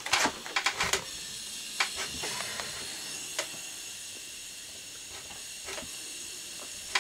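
Small hand-held gas soldering torch burning with a steady hiss, heating a joint to melt silver solder on a cross. A few light clicks of handling come in the first second and now and then after.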